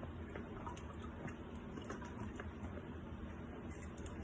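Faint, irregular small ticks and soft wet clicks of blended watermelon-and-lime pulp being pressed and worked in a mesh strainer to squeeze out the juice.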